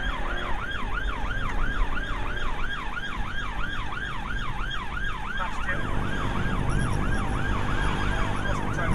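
Police car siren sounding a fast yelp, its pitch sweeping up and down about three times a second. About halfway through, a low rumble of engine and road noise grows louder beneath it.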